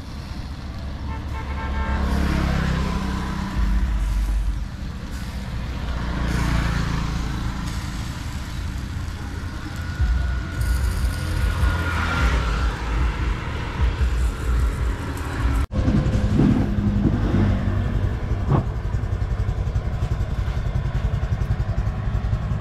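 Road traffic passing close by: several vehicles go by one after another, each swelling and fading, over a steady low rumble. The sound changes abruptly about two-thirds of the way through.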